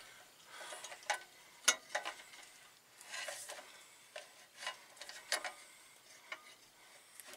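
Light metal clicks and taps, with soft scraping between them, as heavy-truck clutch discs and an intermediate plate on an alignment tool are shifted and seated against the flywheel. The sharp clicks come singly, roughly a second apart.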